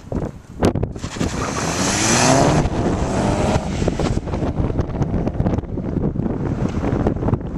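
A hatchback's engine revving up as it accelerates, its pitch climbing for about a second and a half near the middle. Wind buffets the microphone with gusty knocks throughout.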